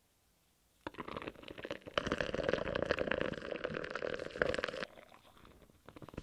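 Molten aluminium poured into a sand-packed can mould, crackling and spitting as flames flare up out of the mould. The crackling starts about a second in, is loudest for the next few seconds, and eases off near the end.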